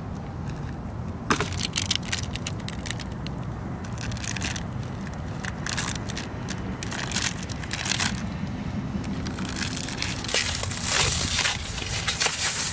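Golf cart packaging being torn open and crumpled: irregular crackling and rustling, densest about ten to twelve seconds in, over a steady low rumble.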